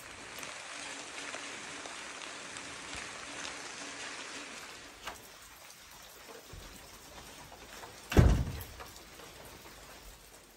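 Rain falling as a steady hiss, heavier for the first four seconds or so and then softer. A single loud thump comes a little past eight seconds in.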